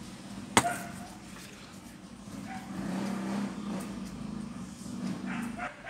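One sharp knock about half a second in, a hard object set down or bumped on the workbench, over a steady low background hum.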